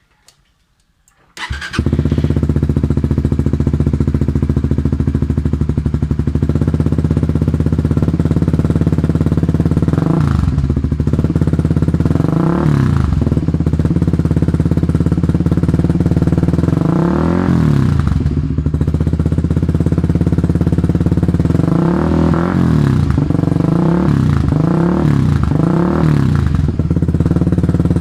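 Suzuki GSX-R150's single-cylinder four-stroke engine, breathing through a Tridente aftermarket exhaust, starting about a second and a half in and then idling. It is given short throttle blips around ten, thirteen and seventeen seconds in, and a quick run of blips near the end.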